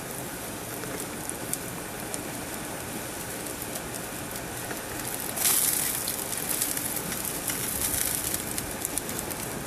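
Gas grill burners running with a steady hiss and light crackle, a louder rush of noise about five and a half seconds in.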